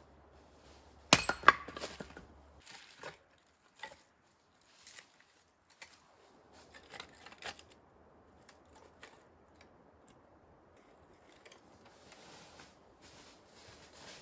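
Split wooden kindling knocking and clattering as it is gathered up by hand, with two loud sharp knocks about a second in and smaller knocks after. Footsteps rustle through dry fallen leaves near the end.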